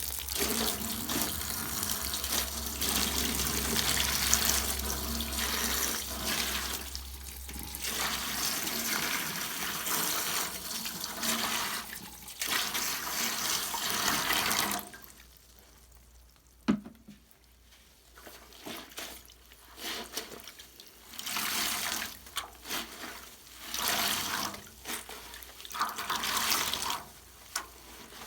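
Bath tap running steadily into a tub being filled for a Mr Bubble bubble bath; the flow stops about halfway through. After a sharp click, shorter bursts of running or sloshing water come and go.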